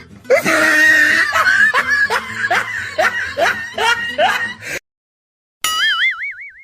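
Laughter sound effect: a breathy, snickering laugh in quick repeated pulses, two or three a second, that cuts off suddenly. After a short silence comes a brief wavering whistle-like tone that rises in pitch.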